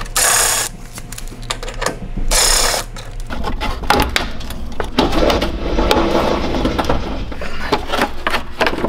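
A cordless driver spins out the 8 mm fender-liner fasteners in two short whirring bursts near the start. Then the plastic inner fender liner and its clips are pried and pulled free, with rustling, scraping and a run of sharp clicks.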